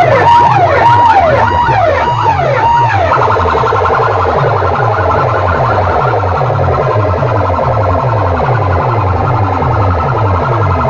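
Banks of horn loudspeakers playing a loud electronic siren effect, a falling wail repeated about every half-second, which about three seconds in gives way to a dense electronic track over a pulsing low bass figure that keeps sliding downward, about three times a second.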